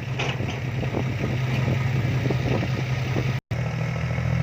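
Heavy diesel machinery engine running steadily at a low drone, with scattered light clatter over it. The sound breaks off for an instant about three and a half seconds in.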